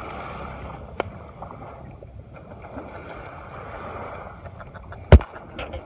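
Hands unhooking a small, freshly caught fish from a lure, over steady wind and water noise at the shore: a sharp click about a second in and a loud knock about five seconds in, the loudest sound.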